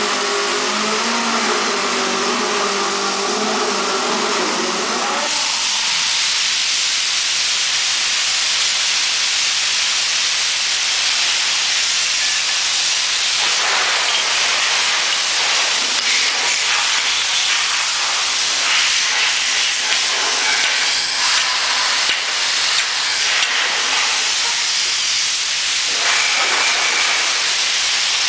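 Loud steady hiss. A low pitched hum with several tones runs under it and stops abruptly about five seconds in.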